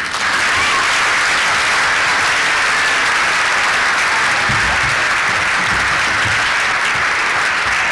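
Audience applauding at the end of a live stage skit, breaking out all at once and holding steady.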